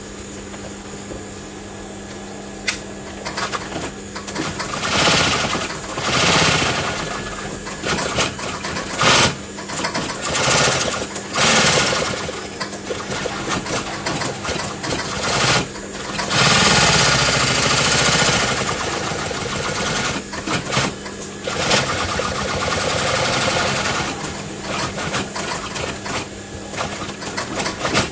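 Industrial high post bed sewing machine stitching in repeated runs of one to several seconds, starting and stopping, over a steady motor hum that is heard alone for the first few seconds.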